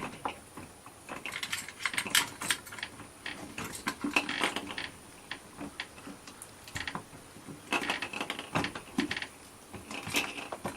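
Irregular clicks, taps and short rattles of an RV door lock's interior handle assembly being fitted against the door, its plastic and metal parts knocking as the latch handle, lock and ribbon cable are lined up.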